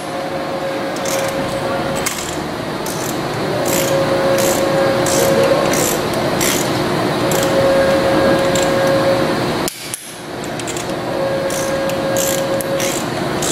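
Light, irregular metallic clicking of a hand tool turning steel socket head cap screws into a hydraulic rotary manifold's keeper plate, over a steady background hum.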